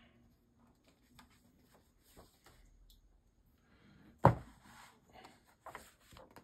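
A comic book's paper pages being handled and flipped. A sharp paper rustle comes about four seconds in, followed by several softer page rustles.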